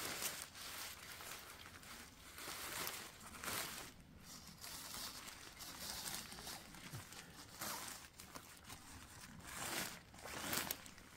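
Tent fabric rustling and crinkling in irregular swishes as a small collapsed tent is gathered and folded by hand.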